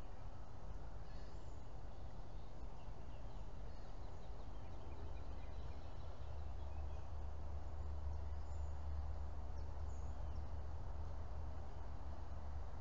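Outdoor ambience: a steady low rumble that gets heavier about five seconds in, with faint scattered bird chirps.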